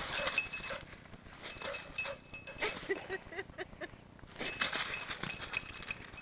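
A hunter safety bell on a dog's collar jingling on and off as the dog moves about, with a quieter stretch in the middle.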